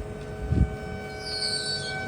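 Trenitalia Pop electric train pulling away, its traction equipment giving out a steady whine of several held tones, with a low thump about half a second in and a brief high, falling squeal near the end.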